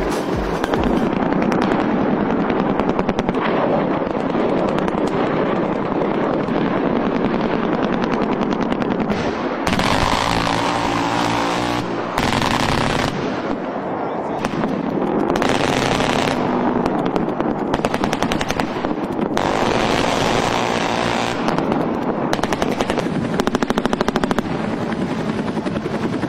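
Rapid automatic gunfire, loud and sustained, cut together from several segments that change abruptly every few seconds.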